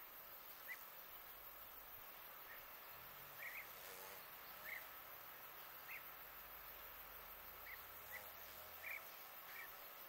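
Faint, scattered bird chirps, about ten short calls at irregular intervals, over near-silent outdoor background.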